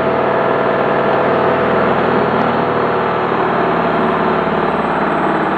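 Bush washing machine spinning a big load on its final fast spin: a steady motor whine with drum rumble, holding speed.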